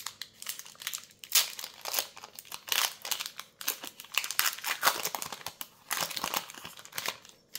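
Foil wrapper of a Magic: The Gathering collector booster pack crinkling and crackling irregularly as it is handled and opened.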